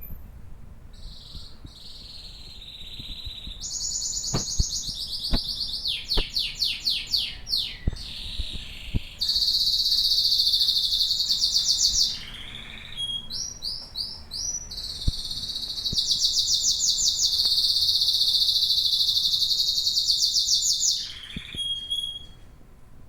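Domestic canary singing a varied song of fast high trills, with two long, even rolling phrases of several seconds each in the second half.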